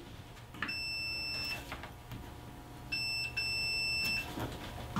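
Digital multimeter's continuity beeper sounding three times, one steady high beep each, the second shorter than the others, as the test leads bridge each phase of a closed three-pole moulded case circuit breaker. The beeps show that the contacts are closed and conducting. Faint clicks of the probe tips on the terminals come between the beeps.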